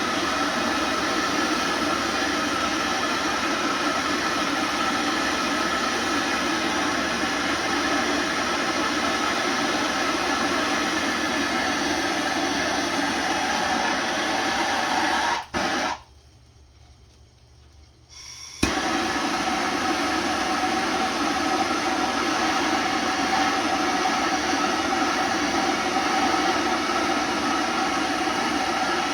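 Soldering torch flame burning with a steady loud hiss, heating the copper pipe joints. It cuts off about halfway through and starts again about three seconds later with a sharp click.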